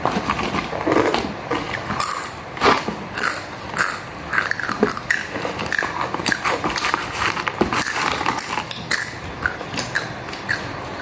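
Close-up eating sounds: biting and chewing with a dense, irregular run of short clicks and smacks from the mouth.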